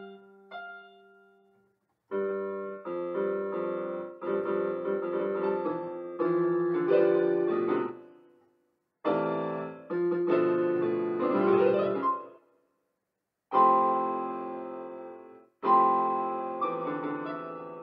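Digital keyboard played with a piano voice: phrases of chords that ring and fade, broken by short pauses in which the sound stops abruptly.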